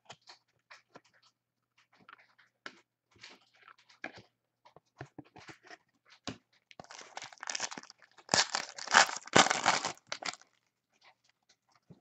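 Trading cards being handled, with scattered light clicks and rustles, then a card pack wrapper torn open and crinkled for about three seconds, the loudest part.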